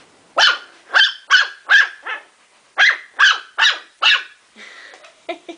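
Ten-week-old Morkie (Maltese–Yorkshire terrier cross) puppy barking: eight high, sharp barks in two runs of four, with a short pause between the runs.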